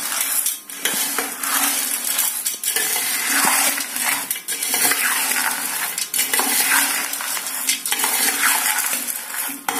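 Steel slotted ladle stirring a dry fried snack mix of field beans, peanuts and roasted gram in a stainless steel bowl: the pieces rattle and scrape along the bowl, with frequent clinks of the ladle against the steel.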